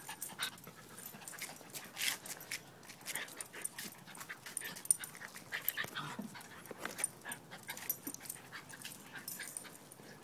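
Small dogs, among them a dachshund, playing together up close: short dog noises amid many quick clicks and scuffles.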